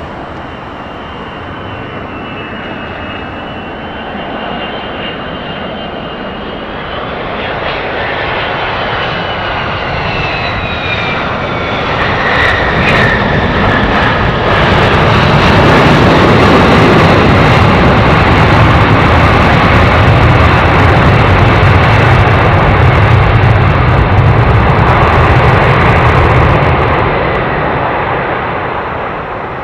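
Landing airplane's engines: a high whine that drops in pitch as the aircraft comes past, then loud engine noise for about twelve seconds that fades near the end.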